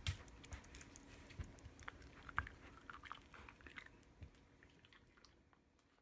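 Toy poodle chewing a treat: scattered crisp crunches and clicks, fading out near the end.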